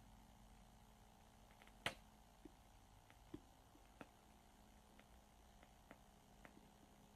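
Near silence with a few faint, short clicks and squishes of slime being handled, the loudest about two seconds in.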